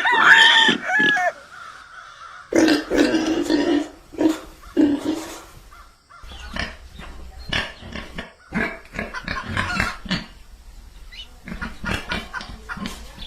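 Farm animals calling: a few high squeals in the first second, a run of low grunts a few seconds in, then many short, rapid calls from a different group of animals in the second half.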